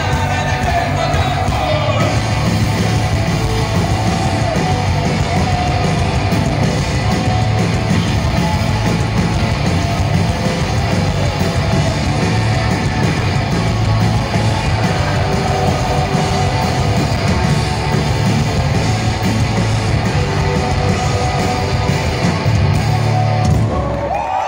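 Live rock music from a drums-and-electric-guitar duo with sung vocals, played loud and stopping just before the end.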